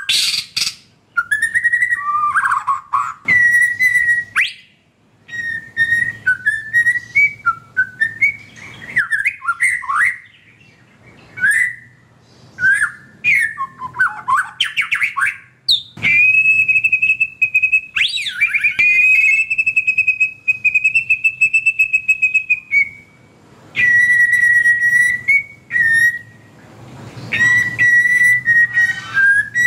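White-rumped shama singing: a run of varied whistled phrases and sliding notes, then, from about halfway, long rapid trills held on one high note, broken by short pauses.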